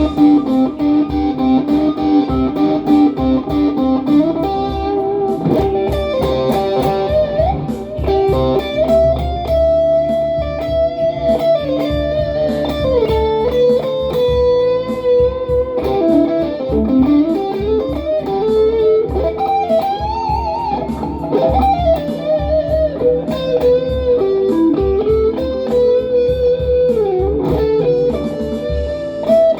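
Les Paul Hurricane electric guitar playing a slow, bluesy lead melody through a pedalboard with delay and reverb: long held notes with string bends, over a steady low pulse.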